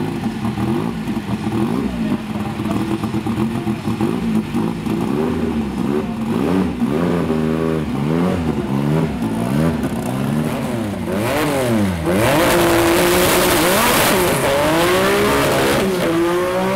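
Twin-turbo V6 engine of a Ford Focus drag car idling steadily, then revved up and down again and again. About twelve seconds in it is held at high revs for a burnout, with a loud hiss of spinning tyres over the engine, and then revved again.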